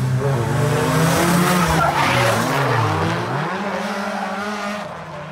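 Drift car's engine at high revs with tyres squealing as it slides past. The engine note dips sharply about three seconds in, comes back up, then fades away.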